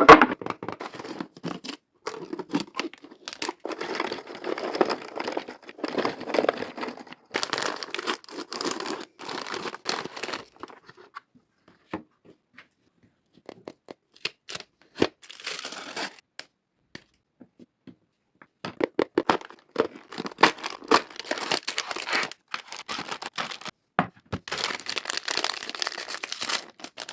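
Snack and sweet wrappers being torn open and crinkled by hand, mixed with sharp little clicks and knocks as the treats are handled and set down. The rustling comes in stretches, with a mostly quiet spell in the middle broken by a few clicks.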